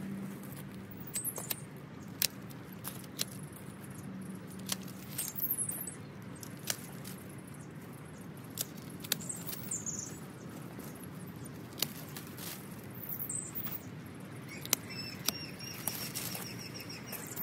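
Irregular scratching, rustling and sharp little clicks of hand weeding and tidying in a garden border, scattered unevenly throughout.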